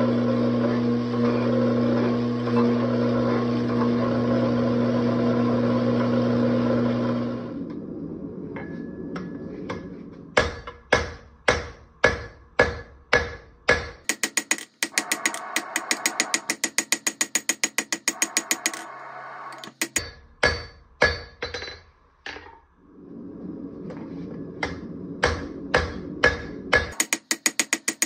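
A forging press hums steadily for the first several seconds. Then a hand hammer strikes hot wootz steel on an anvil in ringing blows, first about two a second and then in long fast runs of several a second.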